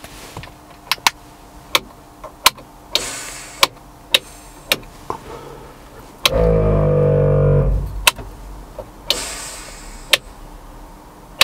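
Rocker switches on an sPod overhead switch panel clicking on and off, about a dozen times. About six seconds in, the ARB air compressor's electric motor runs for about a second and a half and cuts out. Two short hisses come about three and nine seconds in.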